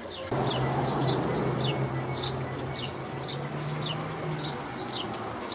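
Small birds chirping repeatedly, about two short falling chirps a second. Over them, a steady rushing noise with a low hum starts suddenly about a third of a second in and eases off near the end.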